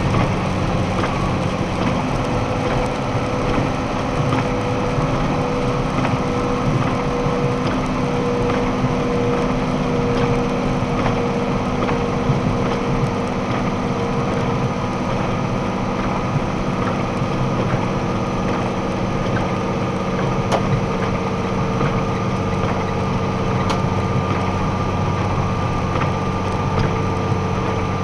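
Box truck engine and drivetrain running at highway speed, heard from inside the cab as a steady hum that steps up slightly in pitch about two seconds in, under a constant hiss of tyres on a wet road.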